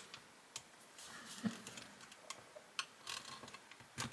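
A few faint, irregular clicks and taps of small plastic and metal model-car parts being handled and fitted by hand.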